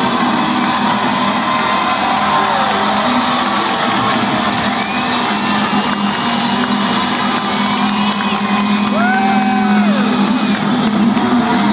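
Loud, steady din of a rock concert in a hall: a crowd cheering over a sustained amplified band sound, with a few rising and falling whoops or whistles about halfway through.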